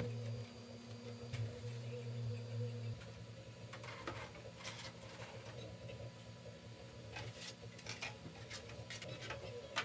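Faint taps and light clicks of lightweight 3D-printed plastic parts being handled and set down on a wooden workbench, scattered through the second half. A low steady hum stops about three seconds in.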